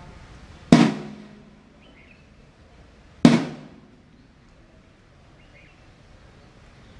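Parade drum struck twice, single loud beats about two and a half seconds apart, each ringing briefly before dying away, the kind of beat that times drill movements.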